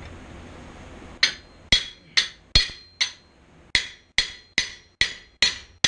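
Hammer blows on a hand-held chisel driven into a hot steel bar on the anvil, splitting the bar's end to make fork tines. About eleven sharp ringing strikes, a little over two a second, starting about a second in with a short pause near the middle.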